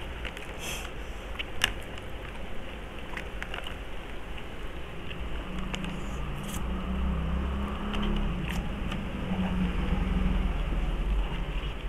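Cup noodles being eaten with chopsticks, with slurps, chewing and scattered small clicks. A low steady rumble comes in about halfway through and grows louder.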